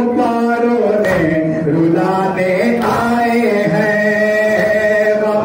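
Men chanting a nouha, a Shia lament: a lead voice on a microphone with the crowd singing along. Under it are the beats of matam, hands striking chests in unison about every second and a half.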